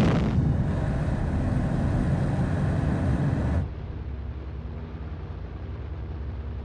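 Deep, steady low rumble of a huge explosion. It drops abruptly to a quieter rumble about three and a half seconds in.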